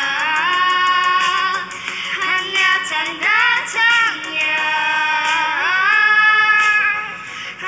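Two young girls singing a duet into handheld microphones, taking turns, with long held notes. Heard through a television's speaker.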